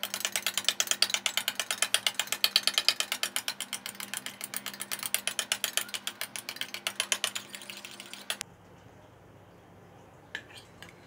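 Eggs being beaten with a metal utensil in a stainless steel tumbler: rapid, even metallic clicking against the tumbler, stopping abruptly about eight and a half seconds in.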